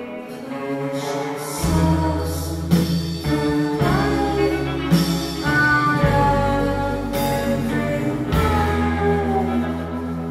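Live rock band playing: electric guitars over bass and drums, with a voice singing. A heavy low bass comes in about one and a half seconds in.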